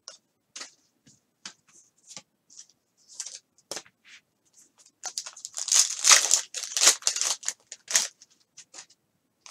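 A foil trading-card pack being torn open and crinkled: a dense tearing rustle from about five to eight seconds in. Before it come scattered small clicks and rustles of cards and wrapper being handled.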